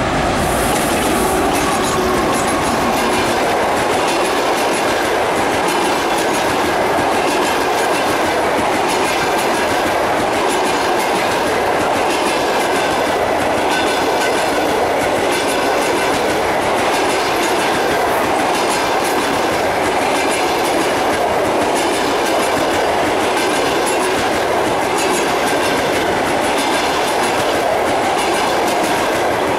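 An EP2K passenger diesel locomotive passes close by at speed, and then its passenger coaches roll past with a steady loud rush of wheel and rail noise and a repeated clickety-clack of the wheels over the rail joints.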